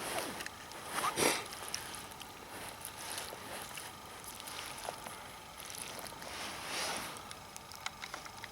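Water sloshing and splashing in irregular swishes, the loudest about a second in, with a few small clicks.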